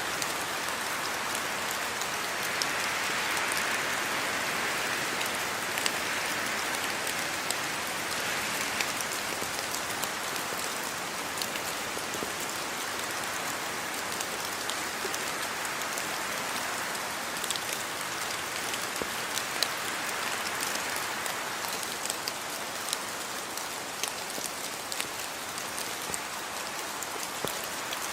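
Steady rain falling on a surface: an even hiss with scattered sharp individual drop impacts.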